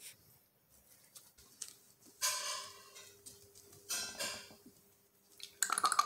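Small puppy moving about on pee pads inside a wire playpen: scattered light rustles and clicks, a brief high-pitched squeak a little after two seconds in, and a quick run of clicks near the end.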